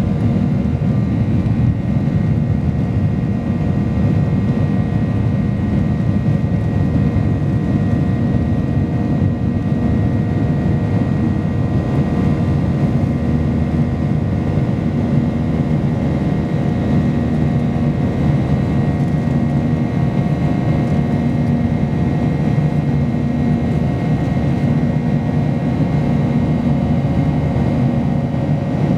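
Boeing 737-800's CFM56 jet engines running steadily at high power, heard inside the cabin: a dense rumble with several constant whining tones over it.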